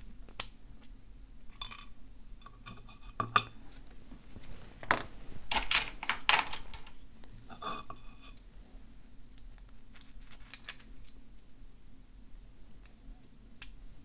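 Scattered small metal clicks and clinks, a few with a brief metallic ring: a steel retaining clip being pried off the back of a pin-tumbler rim cylinder with a clip remover and dropping onto a metal tray, then a plug follower being handled against the lock.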